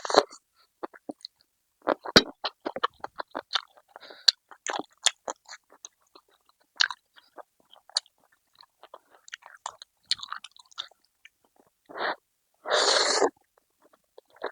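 A person chewing and crunching food close to the microphone, with many quick wet clicks that come thickly for a few seconds and then more sparsely. Near the end there is one louder, noisy burst about half a second long.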